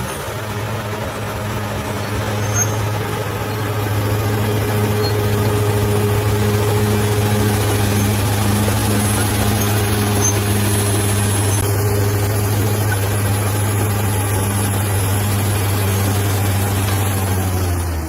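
Bulldozer's diesel engine running steadily at a constant low drone.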